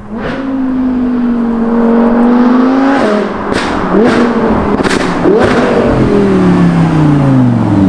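Audi R8 V10 Plus's V10 through a Quicksilver aftermarket exhaust, accelerating hard toward the camera: the engine note climbs, then runs through quick upshifts about three to five seconds in, each marked by a sharp crack. Near the end the note falls steadily as the car slows.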